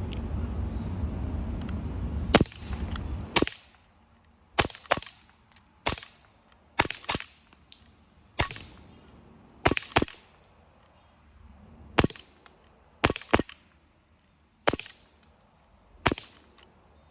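Glock 19X CO2 BB air pistol firing about a dozen sharp shots at uneven intervals, some in quick pairs. A low rumble runs under the first few seconds.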